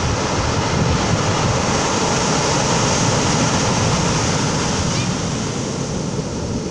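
Ocean surf breaking and washing up a pebble beach, a steady rush that swells over the first few seconds and eases off near the end.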